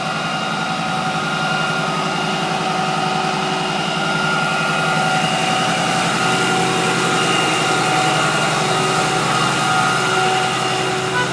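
An engine running steadily, an even drone with several held tones.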